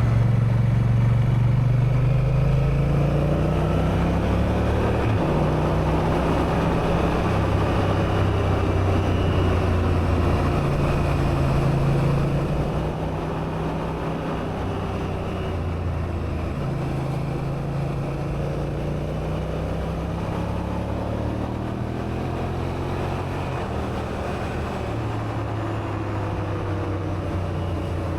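Honda Africa Twin's parallel-twin engine running under way, its note shifting up and down every few seconds as the rider works the throttle and gears, with road and wind rush. It gets quieter about halfway through, as if the throttle is eased.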